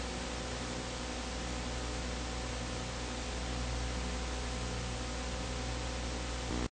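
Steady hiss with a low hum underneath, the noise floor of a silent home-movie film transfer with no sound of its own; it stops abruptly at the very end.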